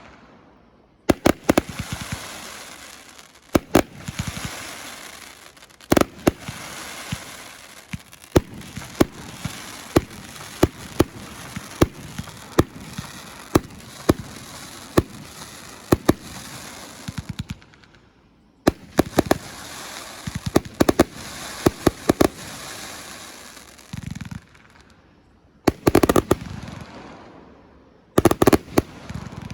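A 284-shot consumer fireworks cake firing volley after volley: many sharp reports from shots launching and bursting, with a steady hiss between them. The firing lulls briefly about 18 seconds in and again around 24 seconds, then picks up with more reports.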